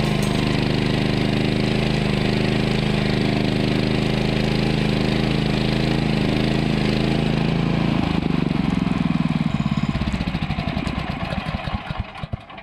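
Woodland Mills HM126 sawmill's 14 hp engine running steadily, then winding down from about eight seconds in: its firing slows into separate beats and dies away near the end as the mill is shut off.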